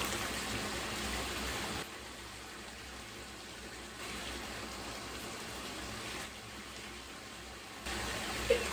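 Bath water moving in a tub, a steady hiss of water whose level drops and rises abruptly a few times, with a short blip near the end.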